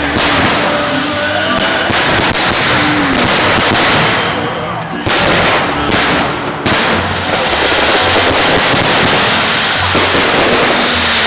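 Aerial fireworks shells bursting overhead: a string of loud bangs over continuous crackling, with big booms at the start and at about 2, 5, 6, 7 and 10 seconds.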